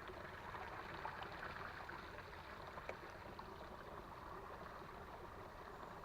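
Small creek flowing and trickling steadily, with a couple of faint ticks about one and three seconds in.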